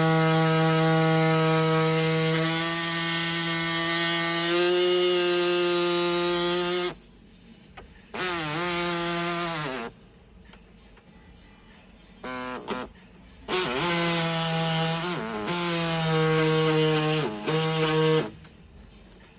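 Handheld electric power tool trimming the plastic door trim: a steady whine with many overtones. It runs for about seven seconds, stops, then restarts in several shorter runs, its pitch bending at each start and stop, and cuts out about a second before the end.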